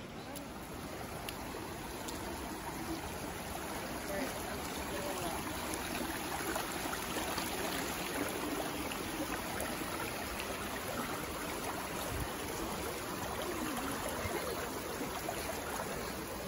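Storm runoff streaming and trickling over rocks in a small rain-swollen creek, a steady rush of water.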